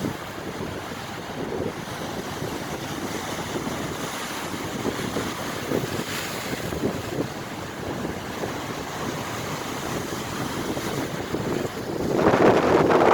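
Strong, gusty wind buffeting the microphone, with sea waves washing behind it; a much louder gust hits near the end.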